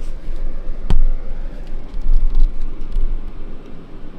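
Blizzard wind buffeting the microphone in an uneven low rumble, with a single sharp knock about a second in.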